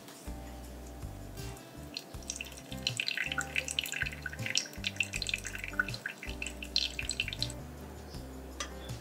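Brewed coffee dripping and trickling through a Hario V60 paper filter into the glass server below, a patter of small drops for about five seconds in the middle, over background music.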